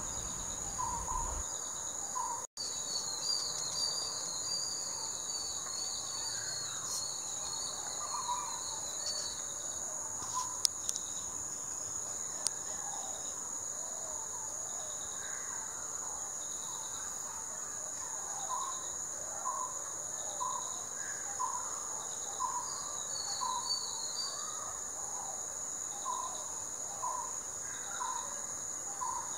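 Steady high-pitched trilling of an insect chorus, with short chirping calls repeating through it and spells of higher twittering.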